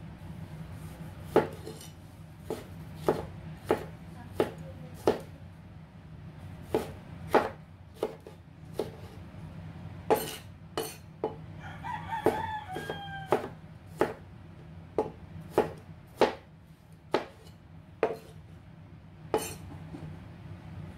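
Cleaver chopping tomatoes on a wooden board: sharp knife strikes about every half second to a second, at an uneven pace. A rooster crows once in the background about twelve seconds in, over a steady low hum.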